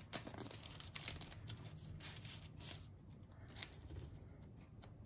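Faint rustling and light clicks of sticker sheets and small paper packaging being handled, busier in the first three seconds and sparser after.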